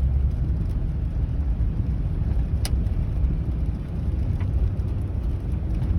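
Car on the move: a steady low road-and-engine rumble, with a single sharp click about two and a half seconds in.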